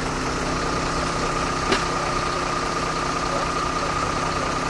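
Engine idling steadily, with a thin steady high whine coming in about half a second in and one sharp click a little before the two-second mark.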